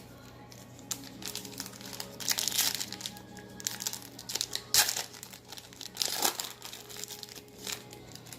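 Wrapper of a 2018 Panini football card pack crinkling in irregular bursts as it is handled and torn open.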